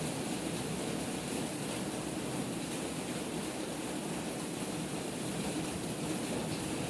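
Heavy rain pouring down in a storm: a steady, even rushing hiss.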